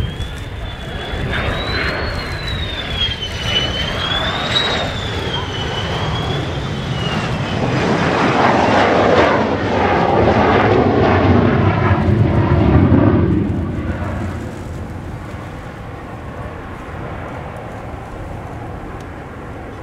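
F-16 Fighting Falcon jet engine on landing approach. A high whine wavers up and down for the first several seconds. A louder rushing rumble builds as the jet passes close, about eight to thirteen seconds in, then fades to a lower, steady rumble.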